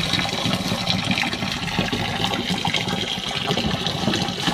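Water gushing and splashing steadily onto a water surface, with many small splashes.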